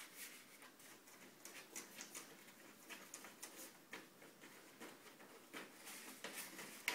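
Sheets of paper rustling and crackling under a cat's paws as it bats at them, in irregular faint rustles with a sharper crackle near the end.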